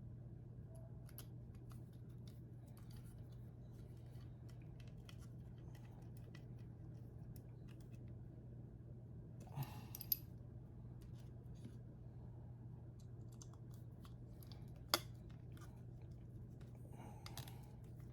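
Faint scraping and ticking of a small screwdriver driving two screws into plastic model-kit parts, with a few sharp clicks of plastic pieces knocking together.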